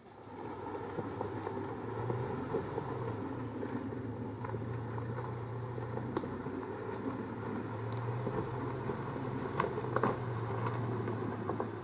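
Toyota Land Cruiser 80 Series engine running steadily under load as it crawls up a steep, slick clay hill, its low drone swelling and easing a little. A few brief sharp clicks stand out about six and ten seconds in.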